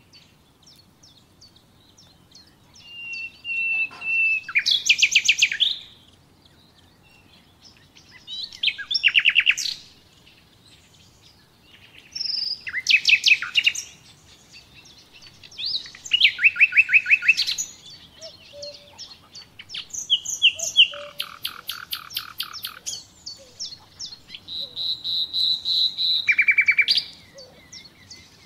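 A songbird singing loud phrases of fast, rapidly repeated notes, a phrase every three to four seconds with short pauses between.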